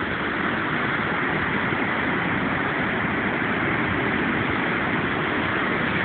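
Steady, even rush of ocean surf breaking along a sandy beach.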